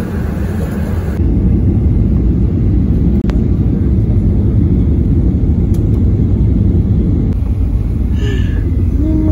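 Airliner cabin noise: the steady, loud rumble of the jet engines and airflow heard from inside the passenger cabin in flight.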